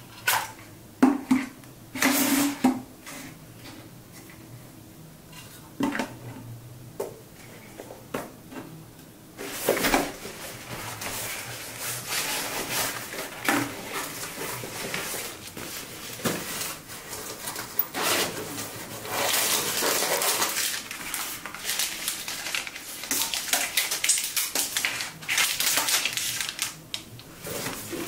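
Hard plastic clicks and knocks as DJI Mini 3 Pro batteries and their charging hub are handled and set down on a table. From about ten seconds in, steady rustling, scraping and small clatters as items are pulled out of a fabric shoulder bag and laid out in their plastic wrapping.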